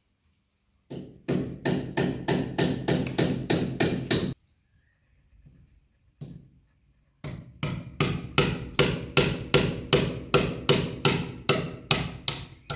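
Claw hammer driving a nail with quick, even strikes, about four a second. It goes in two runs, split by a pause of about three seconds near the middle.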